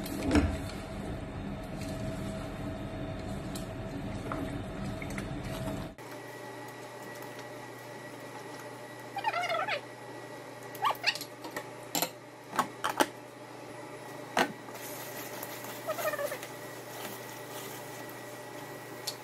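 Egg and eggplant mixture simmering and being stirred with a silicone spatula in a nonstick pan for the first several seconds. Then the sound drops abruptly to a quieter steady background with a few short pitched calls that slide up and down, and several sharp clicks.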